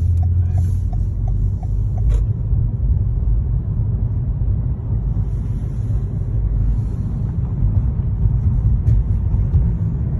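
Steady low vehicle rumble. A fast, regular ticking runs through the first two seconds, and a single click comes about two seconds in.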